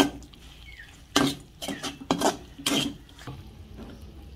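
Stirring chicken in spice paste in a cooking pan: the stirring utensil scrapes and knocks against the pan, about four strokes half a second apart in the middle of the stretch.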